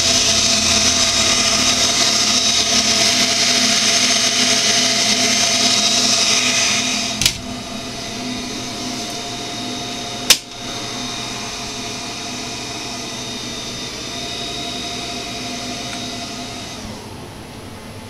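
Cooling fans of a rack cabinet's exhaust fans and freshly powered-on server nodes whirring loudly, with several steady whines over the rush of air. The noise drops suddenly about seven seconds in with a sharp click, another sharp click follows about three seconds later, and it eases again near the end.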